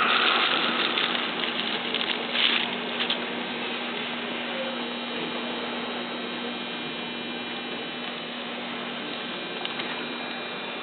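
Steady background noise with a faint low hum, and a few sharp clicks about two to three seconds in.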